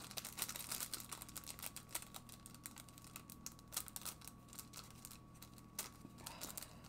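Faint, irregular light clicks and taps of small craft items and plastic packaging being handled, over a faint steady hum.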